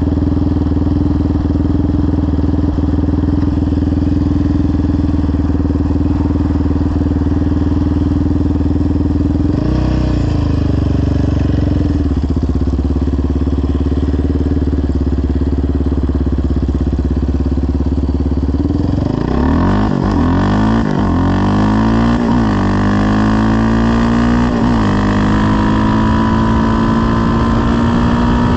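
Yamaha Raptor 700R quad's single-cylinder four-stroke engine, fitted with a full CT Racing exhaust, idling steadily, with one short blip of the throttle about a third of the way in. About two-thirds through it pulls away, revving up through the gears: the note rises several times and drops back at each upshift.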